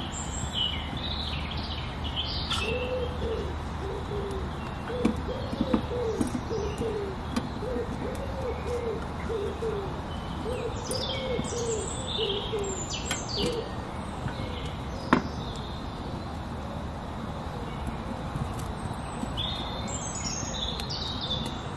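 A dove cooing in a run of repeated low phrases, with songbirds chirping higher up at times. A single sharp click comes about fifteen seconds in.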